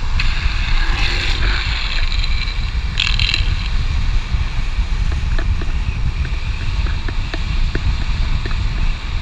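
Longboard rolling fast down asphalt: a steady rumble of urethane wheels on the road with heavy wind on the board-mounted camera's microphone. Hissing slide scrapes on the pavement start just after the beginning and last about a second and a half, with a shorter one about three seconds in.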